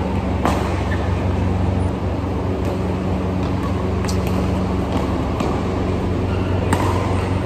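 Badminton rally: three sharp racket strikes on a shuttlecock, about half a second in, about four seconds in and near the end, over a steady low hum.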